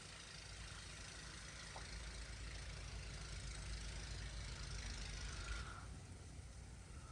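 Storm wind gusting past in near-blizzard conditions: a steady rush with a low rumble that eases off suddenly about six seconds in.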